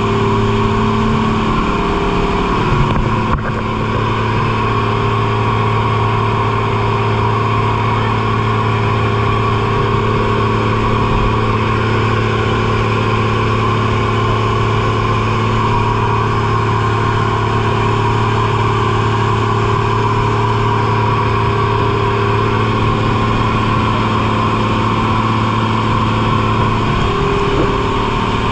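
Boat engine running steadily under way, a constant drone.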